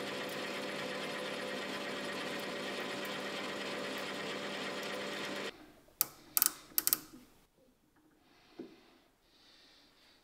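Metal lathe running with a steady hum and whine, which stops abruptly about five and a half seconds in. A few sharp metallic clicks follow as a micrometer is set on the steel part.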